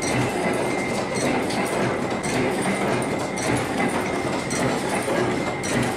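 Chain-making machine running: a rapid, steady metallic clatter of many small knocks as its tooling bends wire into links, with a faint steady whine.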